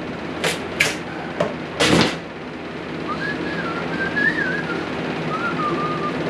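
A few sharp knocks and clatters, like tools or metal parts being handled. Then, from about three seconds in, a wavering whistled tune that slides up and down in pitch.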